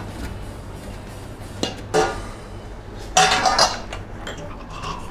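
A metal frying pan and a ceramic plate clinking and knocking as a baked pie is turned out onto the plate: two light knocks about two seconds in, then a louder clatter with a brief ring a little after three seconds.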